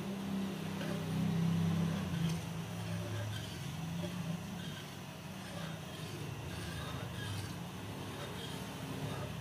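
Metal spoon stirring and scraping a thickening glutinous-rice-flour paste in an aluminium pan, with soft repeated scrapes. A steady low hum runs underneath and is the loudest sound.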